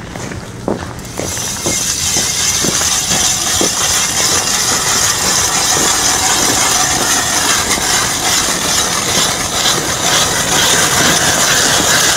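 Hand-cranked steel ice auger drilling into ice: the blades grind and rasp steadily. Over the first few seconds there are regular ticks, a few a second.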